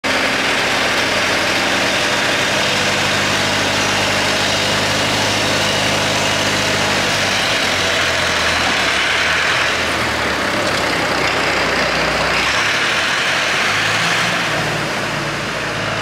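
IH McCormick 276 tractor's diesel engine idling steadily, then its note changing and varying from about seven seconds in as the tractor pulls away.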